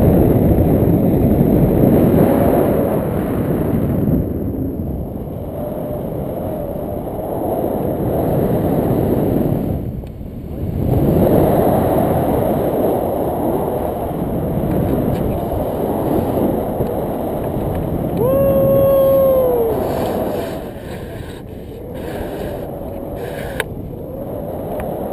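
Wind buffeting the camera microphone during a tandem paraglider flight: a loud, uneven rush that swells and eases. About three-quarters through, a held tone sounds for a second or two and drops in pitch as it ends.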